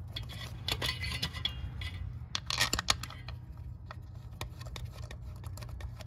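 Small metal clicks, taps and scrapes as bolts are handled and hand-threaded into a neutral safety switch on a transmission case. A louder cluster of clicks comes about halfway through, over a steady low hum.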